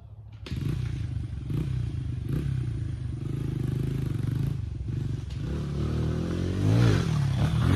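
Small single-cylinder pit bike engine that comes in suddenly about half a second in and runs steadily, then is revved up and back down near the end as the bike pulls away.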